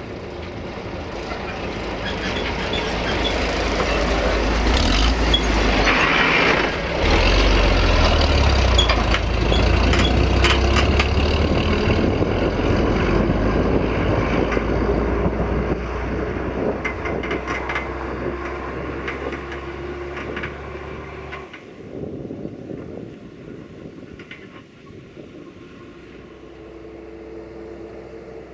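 Roman 10.215 diesel trucks driving past, their engines and tyres growing louder as they approach and loudest about a quarter to a third of the way in, then fading as they pull away. About three-quarters through, the low rumble drops off suddenly, leaving a fainter engine sound of a truck driving off.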